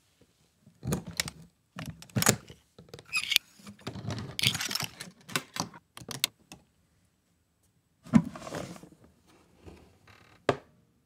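The metal latch and lock of an aluminium-trimmed case worked by hand: a run of sharp metallic clicks and rattles. About eight seconds in comes a heavier thunk with a brief scrape, then one sharp click near the end.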